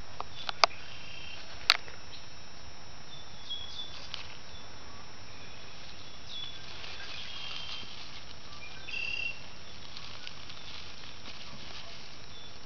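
Quiet outdoor ambience with scattered faint, short, high-pitched animal chirps over a steady hiss. Two sharp clicks come within the first two seconds and are the loudest sounds.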